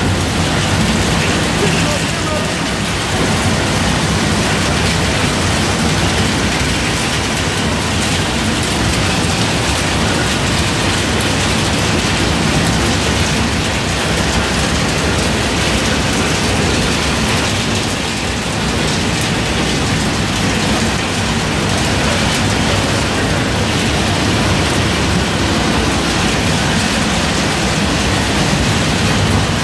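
An almond cracking and sieving line running: a loud, steady, dense rattle of almond shells and kernel pieces pouring over vibrating sieves and chutes, over a low machine hum.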